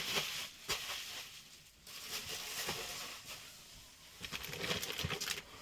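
Packaging being handled as parts are unpacked: rustling with scattered light taps and clicks, busier near the end.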